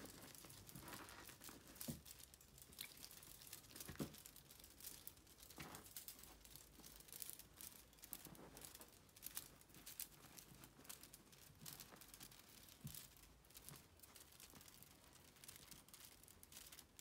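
Faint rustling and scratching of young kittens scrambling over quilted fabric bedding while they play, with many small clicks of claws and a few soft thumps.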